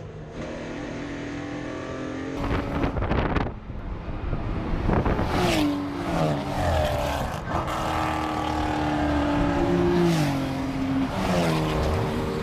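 Porsche 964's air-cooled flat-six engine at racing speed. Its pitch climbs and drops in steps several times, most clearly about halfway through and again near the end, as the car is driven hard through the gears.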